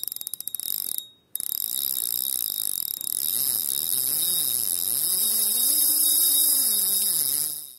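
Edited title sound effects: a rapid run of ratchet-like clicks that stops about a second in, then a wavering tone that bends up and down and climbs over a steady hiss, fading out near the end.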